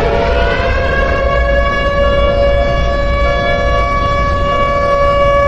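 Air-raid warning siren winding up to pitch and then holding a steady wail of several tones at once, over a low rumble. The rise ends about a second in.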